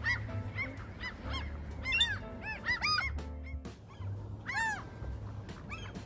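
Gulls calling: many short, arched, ringing calls in quick succession, some overlapping, over a steady low rumble.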